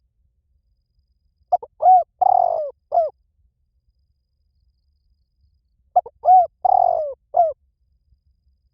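Spotted dove calling: two cooing phrases about four and a half seconds apart, each a few short coos, then a longer drawn-out coo and a short closing note.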